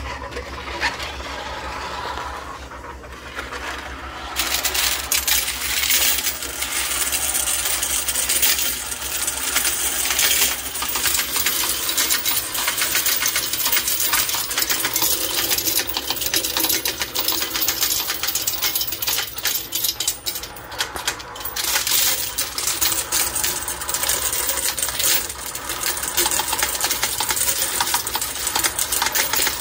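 Commercial coin sorter switched on: its motor hums steadily, and from about four seconds in coins clatter continuously as they are sorted and dropped into the canvas bags.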